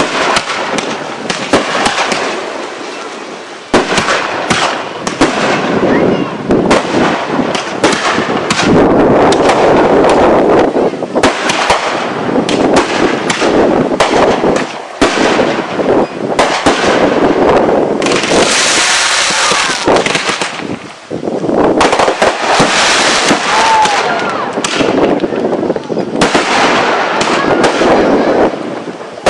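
Fireworks going off in a dense, continuous barrage of bangs and crackling, with several stretches of hissing crackle and a brief whistle near the end.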